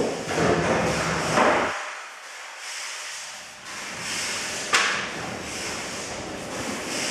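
Broom sweeping the floor of an empty steel shipping container: repeated swishing strokes, with one sharp knock about five seconds in.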